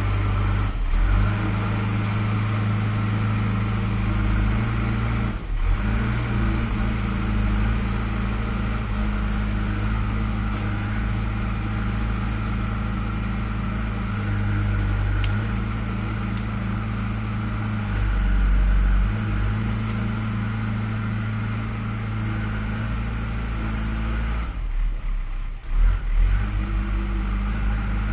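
JCB 3CX backhoe loader's diesel engine running under load as the machine drives and works its loader bucket, the engine note stepping up and down with the throttle. The sound briefly dulls, with a few sharp knocks, about three seconds before the end.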